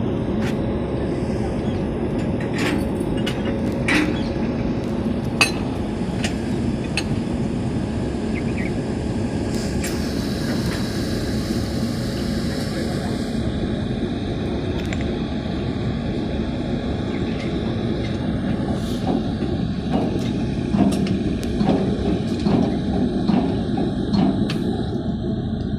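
Electric locomotive coupling at a railway train: a steady rumble with scattered sharp metallic clanks and knocks, and a hiss lasting about three seconds about ten seconds in.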